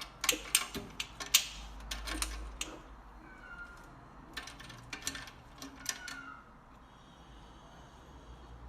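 A series of sharp clicks and knocks, with a cat giving a couple of short, faint meows.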